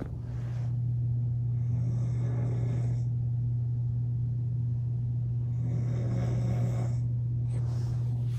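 A steady low hum at one fixed pitch under a dull rumble, with a faint hiss that swells twice.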